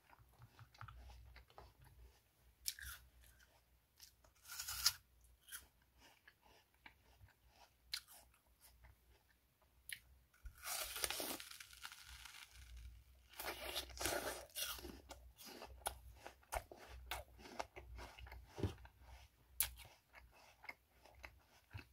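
A person biting and chewing crisp apple: irregular crunches and wet chewing clicks, with a few louder, longer bouts of crunching about a quarter, a half and two-thirds of the way through.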